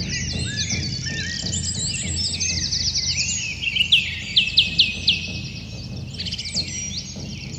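Several birds chirping and trilling at once, with quick repeated notes and short rising and falling calls, over a steady low rumble.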